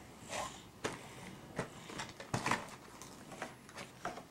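Scattered knocks and rustles of a toddler handling a cardboard cracker box and its inner packaging, a few sharp taps at irregular intervals.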